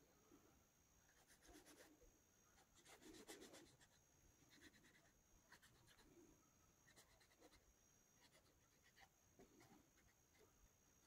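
Faint scratching of a marker tip drawn across T-shirt fabric, in short separate strokes a second or two apart.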